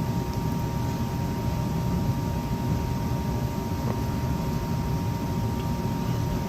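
Steady low machine hum with a thin, constant whine.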